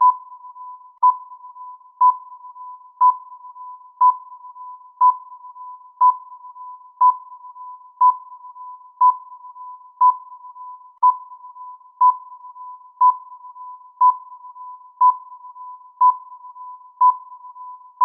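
Countdown timer sound effect: an electronic beep, one sharp ping exactly once a second, with a fainter, wavering tone of the same pitch held between the pings.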